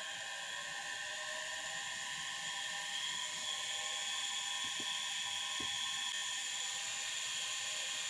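Samsung washing-machine universal motor running off a bench power supply at low voltage: a steady whine of several tones over brush hiss, rising a little in pitch and level about three seconds in as the voltage is turned up. Two clicks come near the middle.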